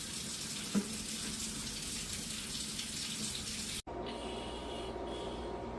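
Kitchen tap running into a sink, a steady hiss of water that cuts off abruptly about four seconds in, leaving a low steady hum.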